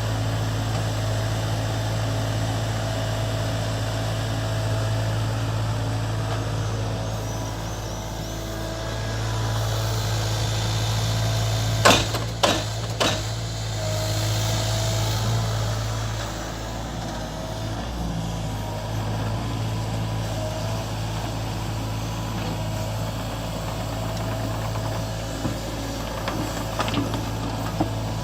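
Diesel engine of a SANY mini excavator running steadily, with a few sharp knocks in quick succession about twelve seconds in.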